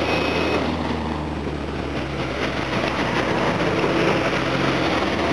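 Car engines running steadily at low revs, a low drone with no rise or fall in pitch.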